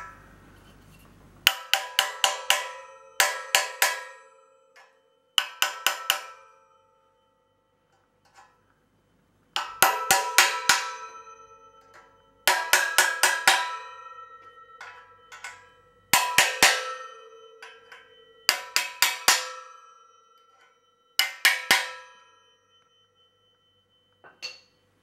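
A small hammer tapping rivets home through the smokebox-to-boiler joint of a model Burrell traction engine. There are eight bursts of quick metallic taps, each setting the metal shell ringing.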